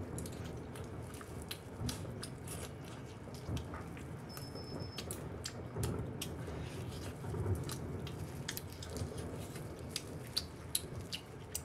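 Close-miked eating of spicy braised lamb trotters: wet chewing, sucking and lip smacks, with many small sharp clicks of teeth and lips on the soft, gelatinous skin and bone.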